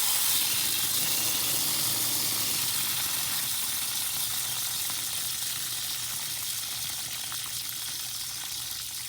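Water hissing out of a faucet in a steady spray that slowly grows quieter.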